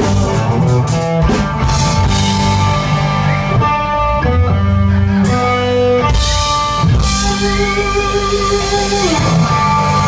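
Live country-rock band playing an instrumental passage: electric guitar lead with held and sliding notes over strummed acoustic guitar and drums.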